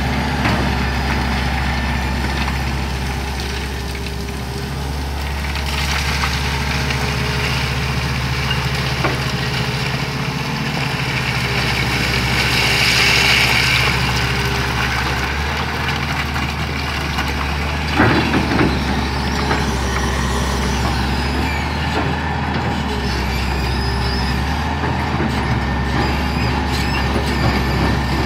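Caterpillar 375L excavator's diesel engine running steadily as the machine digs and swings. Around thirteen seconds in there is a rush of rock pouring from the bucket onto the pile, and about eighteen seconds in a sharp loud knock.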